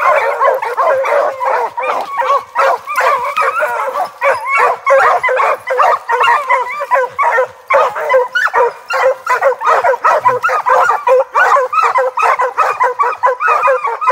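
A pack of seven-month-old Plott hound pups barking and yipping over one another without a break, treeing a bear: baying up the trunk at the bear they have put up the tree.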